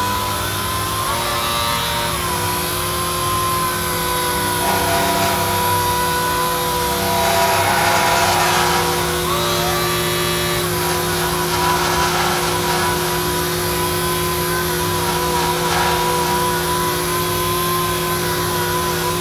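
Robot-held palm sander running steadily while wet-sanding a solid-surface panel: a constant motor whine that wavers and dips slightly in pitch as the pad works across the surface, over the hiss of the sanding.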